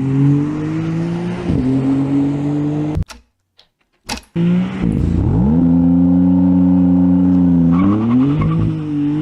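Sports car engine accelerating hard through the gears: the pitch climbs, drops at an upshift about one and a half seconds in and climbs again, breaks off for about a second, then comes back with a quick rise and a long high pull that rises once more near the end.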